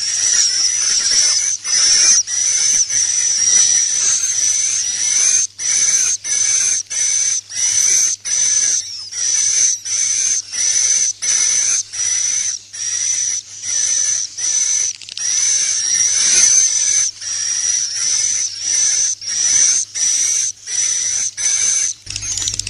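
Recorded white-nest swiftlet roosting ('inap') call, the kind used to lure swiftlets into a nesting house: rapid high-pitched twittering in short phrases repeating about one and a half times a second, with brief gaps between them.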